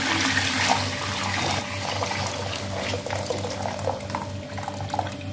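Meat stock poured from a jug into a hot cooking pot, a steady splashing pour that slowly eases off toward the end.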